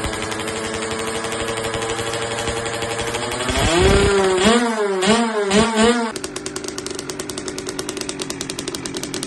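Kawasaki KX65 dirt bike's small two-stroke engine idling, then revved up and blipped several times in quick succession about four seconds in. It drops back to a steady, lower idle at about six seconds.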